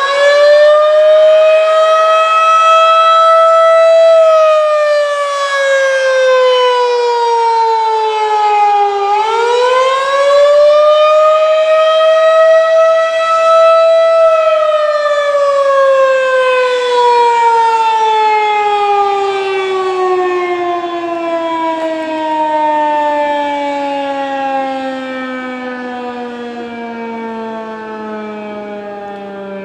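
Federal Signal 2001-DC rotating outdoor warning siren sounding the wailing attack signal, its pitch rising and falling over cycles of about ten seconds. After a final rise to its peak about 14 seconds in, it winds down, the tone sliding slowly lower and fading as the siren shuts off.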